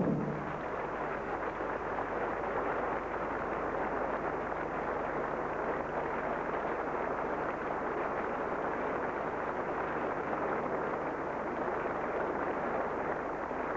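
Theatre audience applauding steadily, just after the band's closing chord dies away at the start.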